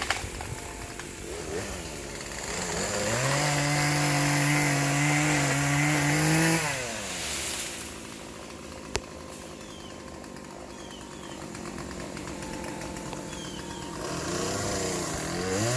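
Chainsaw revving up to high speed about three seconds in, held there for a few seconds, then dropping back to idle, before revving up again near the end. A single sharp click sounds about nine seconds in.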